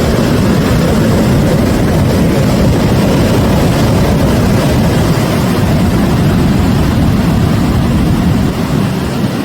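Rough sea waves breaking against a pier: a loud, steady, low rumble of surf with no separate crashes standing out.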